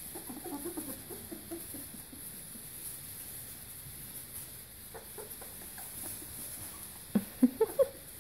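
Three-week-old golden retriever puppies making small whimpers and squeaks, faint at first, with a run of several louder squeals near the end.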